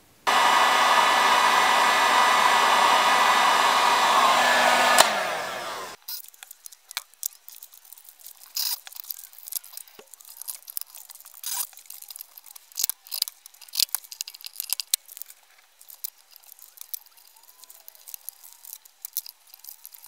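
Electric heat gun blowing hot air for about five seconds to shrink heat-shrink tubing over a soldered wire joint, then switched off and spinning down. After it come scattered light clicks and ticks of wires being handled and pressed into plastic clips.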